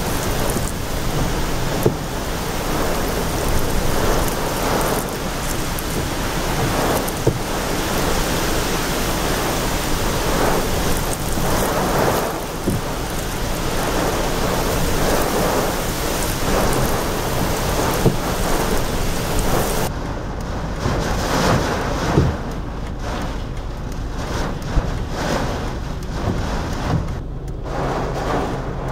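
Hurricane wind and heavy rain against a car, heard from inside the cabin: a dense, steady rushing hiss that surges and eases every second or two. About twenty seconds in the sound turns duller, with less high hiss.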